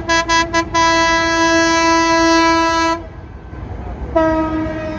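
Train horn sounding a long single-note blast, broken by a few quick toots at the start and cut off about three seconds in. About a second later a second blast starts, slightly lower and sagging in pitch.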